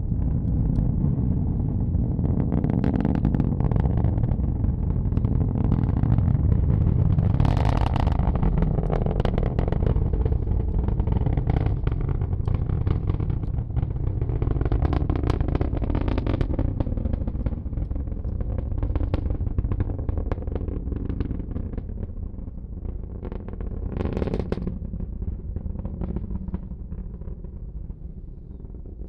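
Distant roar of a Falcon 9 rocket's nine Merlin engines climbing away after liftoff: a deep, steady rumble shot through with sharp crackles, fading over the last several seconds.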